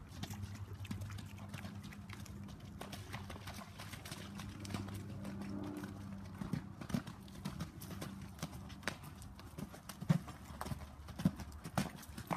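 Hoofbeats of a ridden Kentucky Mountain Saddle Horse gelding on wet, muddy arena footing: irregular thuds that become clearer and louder in the second half.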